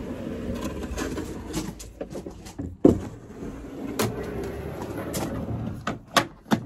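Metal Bott van drawer, fitted with a plywood lid, sliding along its runners and being pushed shut. Knocks and clunks come about three seconds in, again a second later, and twice in quick succession near the end as it closes.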